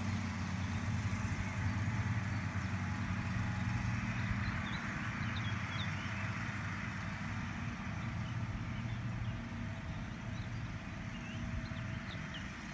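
Engines of a John Deere tractor with a mower deck and a ride-on mower running steadily as they cut grass, a drone that eases slightly as they move away. A few faint bird chirps come through near the end.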